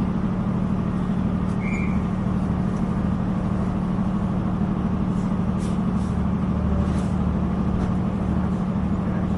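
Inside a moving Northern Ireland Railways diesel multiple unit: a steady engine and running drone with a pulsing low rumble and faint scattered ticks. A short high chirp sounds about two seconds in.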